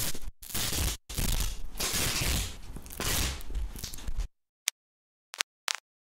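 Sellotape being unwound under tension, recorded and run through heavy saturation distortion and compression: a harsh, stuttering crackle-and-tear noise in several bursts with brief breaks, lasting about four seconds. Near the end come a few sparse, sharp clicks of unprocessed vinyl-record crackle.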